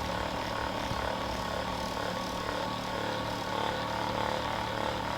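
Electric handheld massager running with a steady, even motor hum.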